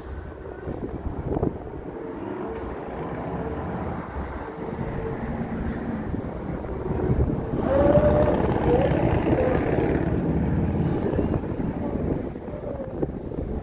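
CSX freight train rolling past, its wheels rumbling steadily on the rails. A louder stretch with a short wavering tone comes about eight seconds in.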